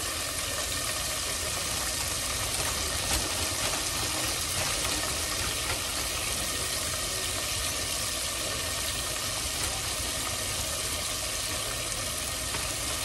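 Floured chuck steak pieces deep-frying in a pot of hot oil: a steady sizzle with a few brief crackles as more pieces are dropped in.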